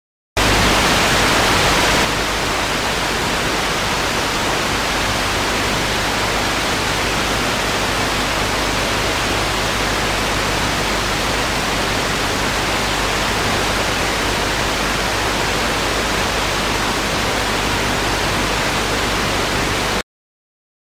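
Hiss of untuned television static, steady and even. It starts abruptly, is a little louder for the first couple of seconds, and cuts off suddenly near the end.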